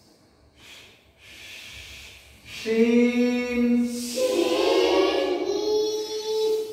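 A child's voice chanting a recitation in long, held notes, stepping up to a higher pitch about four seconds in.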